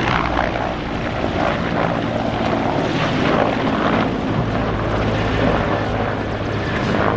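Mil Mi-14PŁ naval helicopter in flight: steady, loud rotor and twin turboshaft engine noise with a low hum.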